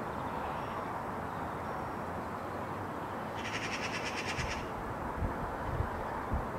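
A small songbird gives a rapid, high trill lasting about a second, a little past the middle, over a steady outdoor hiss. A few low thumps follow near the end.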